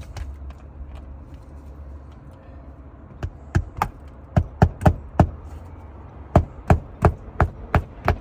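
Hammer driving a roofing nail through an asphalt shingle. A run of sharp blows, about three a second, starts about three seconds in, pauses briefly and starts again.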